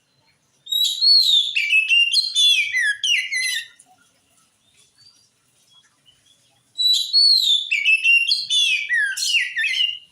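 Oriental magpie-robin (kacer) singing two loud phrases of about three seconds each, with a pause between: sliding, falling whistles mixed with quick chattering trills.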